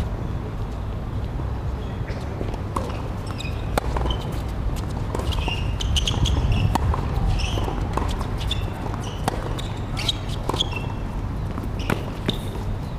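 Tennis rally on a hard court: sharp racket strikes on the ball and ball bounces, coming about once a second, over a steady low background rumble.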